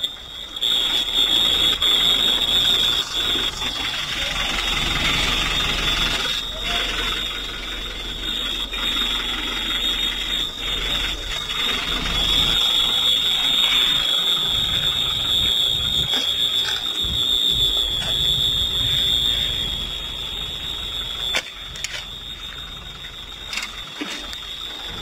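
A high-pitched electronic alarm sounding as one steady, unbroken tone, cutting in about half a second in.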